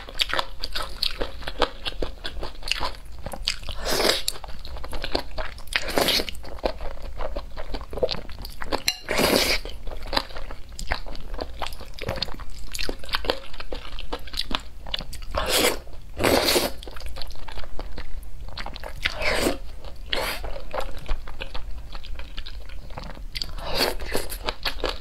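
Close-miked eating of saucy noodles: steady chewing with many small wet mouth clicks, and a louder slurp every few seconds.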